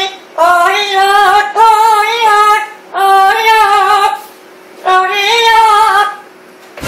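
Yellow-crowned Amazon parrot singing in a mimicked human voice: four wavering sung phrases of about a second each, with short pauses between, repeating '노래해요' ('singing').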